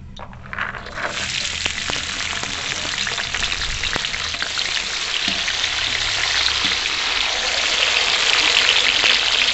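Cut green beans frying in hot oil in a large aluminium kadhai: a dense sizzle that starts about a second in as the beans hit the oil and grows slowly louder, with the beans stirred by a wire skimmer.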